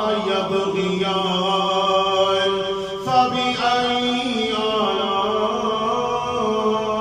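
A man reciting the Quran in the melodic, chanted tajwid style, drawing out long held notes. The phrase breaks off about three seconds in and a new one begins.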